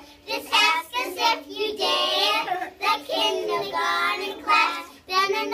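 A group of young children singing a song together, in short phrases with brief pauses between them.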